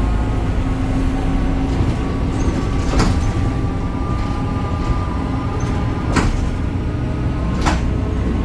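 BredaMenarini Avancity Plus city bus running, its Deutz diesel and ZF gearbox giving a steady low drone with a faint steady whine. Three short sharp clicks or knocks come a couple of seconds apart.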